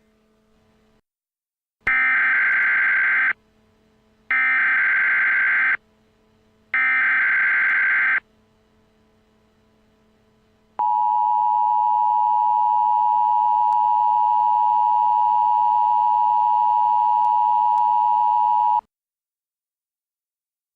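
Emergency Alert System tones: three SAME header data bursts, each about a second and a half long with short gaps between them, then, after a pause of about two and a half seconds, the two-tone attention signal held steady for about eight seconds before it cuts off. Together they announce the start of an emergency alert message.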